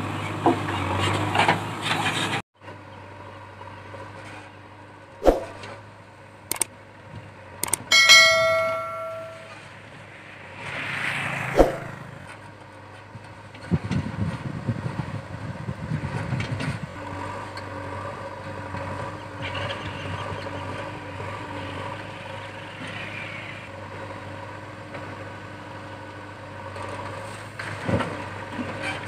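Backhoe loader's diesel engine running steadily while it loads a lorry, with several sharp metal knocks and one ringing clang that fades over about a second, about eight seconds in.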